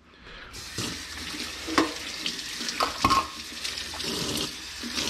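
Kitchen faucet running into a stainless-steel sink, coming on about half a second in, with a few light knocks.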